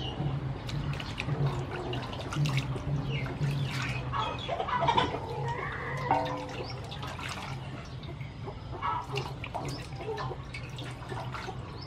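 Whole snakehead fish being washed by hand in water in a metal basin: irregular splashing and sloshing with scattered small knocks.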